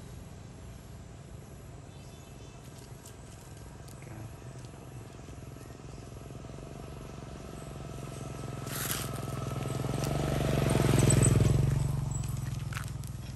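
Motor vehicle engine passing on the road: a low hum that swells over a few seconds, is loudest about three-quarters of the way through, then fades away.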